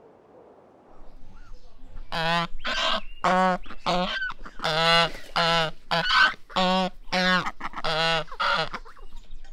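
Domestic white geese honking: a run of a dozen or so short, loud honks in quick succession, starting about two seconds in.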